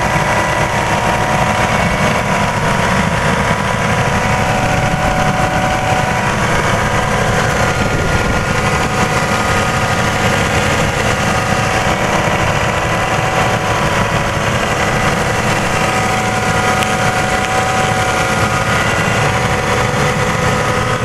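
1993 Toyota Camry V6 engine idling steadily with the air conditioning switched on, a constant low hum with a few steady whining tones over it.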